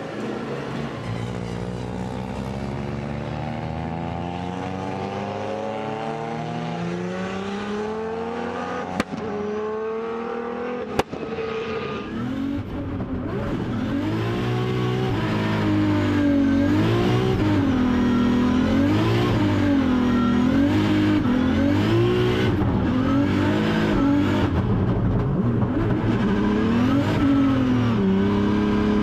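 Turbocharged Toyota GR Supra drift car's engine revving hard, its pitch climbing again and again in the first half, with two sharp clicks near the middle. Then it gets louder, the revs swinging up and down about once a second as the car drifts with the rear tyres spinning.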